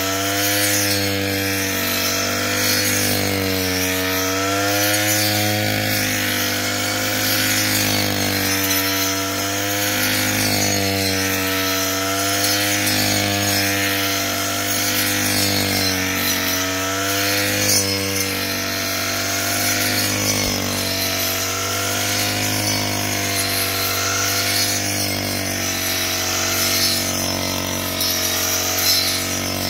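Brush cutter engine running at high revs, driving a 12-inch circular-saw blade through thick grass. The engine note dips and recovers every couple of seconds as the blade takes load and frees up.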